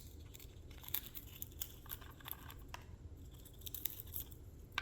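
Cuban Amazon parrot tearing and crunching the cardboard of a foraging box with its beak: irregular crackles, snaps and small tearing sounds.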